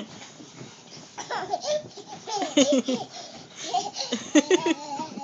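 A small child laughing in two spells of giggles, the pitch sliding up and down.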